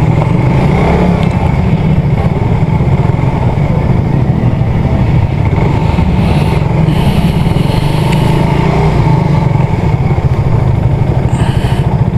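Motorcycle engine running at low speed with a steady, even pulsing beat as the bike rolls slowly over a rough dirt lane.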